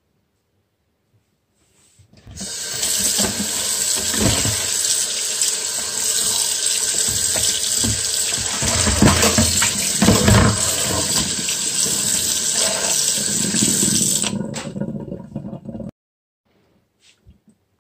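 Tap water running into a plastic basin while a raw whole chicken is rubbed and rinsed by hand, with splashing. It starts about two seconds in, and the running water stops near the end, followed by a brief slosh.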